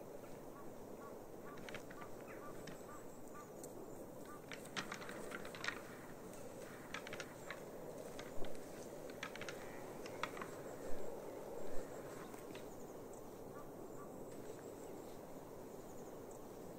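Antlers of two red deer stags clacking and knocking together as they fight, in irregular sharp clicks, with a few louder knocks in the second half.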